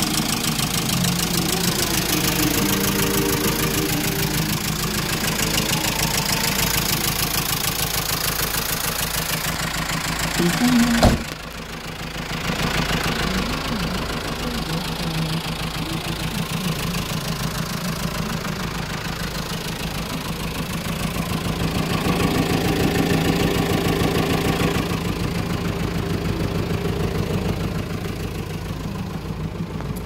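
Kia Bongo truck's engine idling steadily, with a single knock about eleven seconds in.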